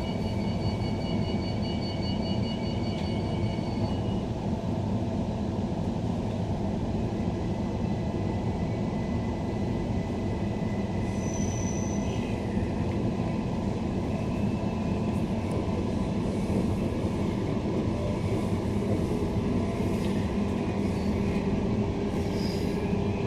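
Interior running noise of a Queensland Rail NGR, a Bombardier-built electric multiple unit: a steady low rumble from the moving car. A short string of high beeps sounds in the first few seconds, and a steady tone joins in near the end.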